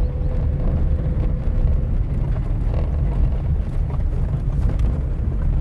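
Car driving slowly along a farm track, heard from inside the cabin: a steady low rumble of engine and tyres, with a few light knocks.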